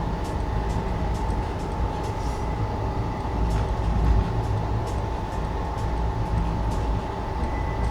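Running train heard from inside an Indian Railways air-conditioned passenger coach: a steady low rumble with a constant hum and scattered light clicks and rattles.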